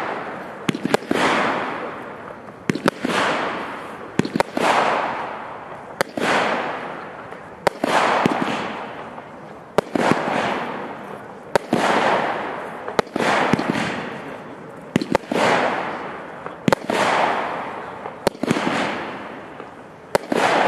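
Weco Resident Evil firework battery firing shot after shot, about one every one and a half to two seconds. Each shot is a sharp bang followed by a hissing rush that fades away.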